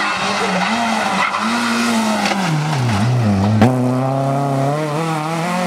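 Renault Clio rally car's engine revving hard as it comes past, its pitch dropping about three seconds in as it slows for the bend, then climbing again as it accelerates away. A sharp crack comes about three and a half seconds in.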